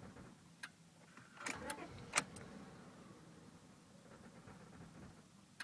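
A 2000 Honda Accord's engine idling with a low steady hum, the car logging a misfire-on-all-cylinders code. A few sharp clicks near the start.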